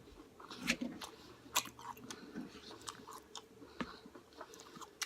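Close-up chewing of a mouthful from a chicken and brown rice burrito bowl, with irregular wet clicks and smacks; the sharpest come a little under a second in and at about a second and a half.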